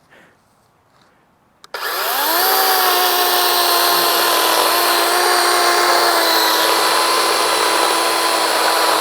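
DeWalt 20V Max XR brushless cordless chainsaw: after a click, its electric motor spins up with a rising whine about two seconds in, then runs at a steady pitch while cutting through a dry old pine log.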